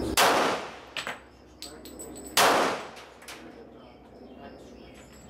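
Glock 23 pistol fired twice, about two seconds apart, each shot a sharp crack with a ringing tail. Fainter sharp cracks fall between the shots.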